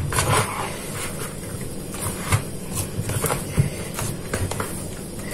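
Hands kneading and pressing a firm oat dough in a plastic bowl: irregular soft knocks and scrapes of dough and hands against the bowl, with a sharp knock right at the start.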